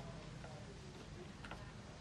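Faint background sound: a low steady hum with a few soft chirps and a single light click about one and a half seconds in.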